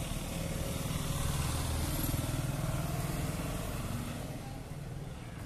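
Motor traffic passing close by on a street: motorcycle engines and a small goods truck going past, the engine hum growing louder about a second in and fading toward the end.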